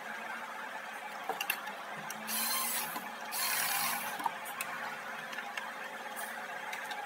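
Two short whirring bursts, about two and three seconds in, of a ratchet or small power tool spinning a bolt out, with scattered clicks and knocks of tools against metal.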